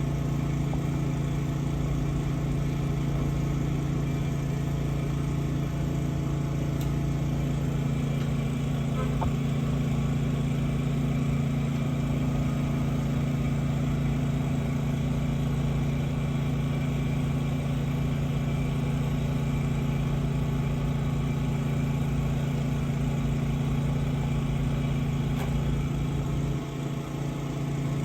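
Engine of a sewer water jetter running steadily while jetting a grease-clogged sewer line, a constant low drone with a short dip in level near the end.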